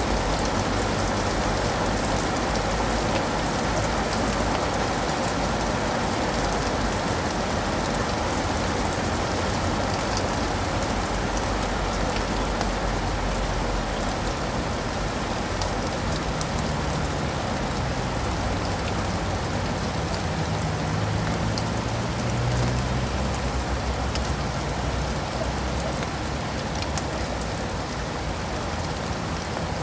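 Steady rain falling on leaves and pavement, with scattered drops ticking through it. A low hum joins in about halfway through and fades after several seconds.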